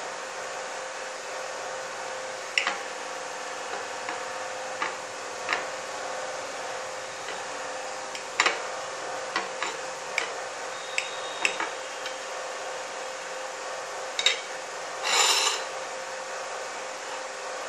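Kitchen knife cutting through soft steamed dhokla, its blade clicking and tapping against a glass plate in scattered sharp taps, with one short scrape a couple of seconds before the end.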